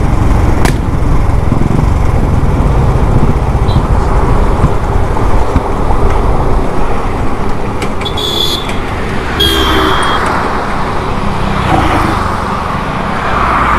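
Royal Enfield Classic 350's single-cylinder engine running under wind and road noise as the bike, acting up again, slows onto the roadside shoulder. Two short horn toots from passing traffic come about eight and nine and a half seconds in.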